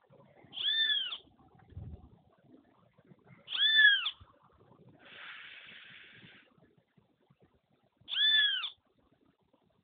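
A female sabiá calling: three separate drawn-out notes, each rising then falling, a few seconds apart. A faint hiss comes between the second and third calls.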